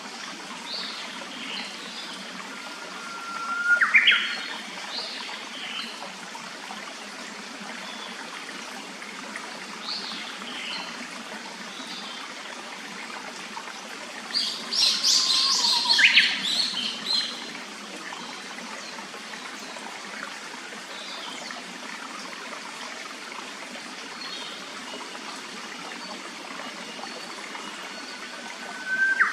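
A clear stream running steadily, with Japanese paradise flycatcher calls over it: a loud call about four seconds in that starts on a held note and sweeps upward, a cluster of louder notes about halfway through, the same rising call again near the end, and fainter short chirps between.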